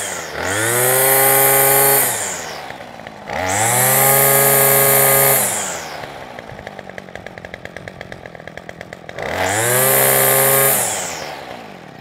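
Titan petrol strimmer's small two-stroke engine revved up and released three times, rising cleanly to high revs and falling back to a steady ticking idle between blips, then winding down near the end. Its carburettor mixture has just been set about a quarter turn leaner after a new diaphragm, which cured its bogging: it picks up and revs well and holds its idle.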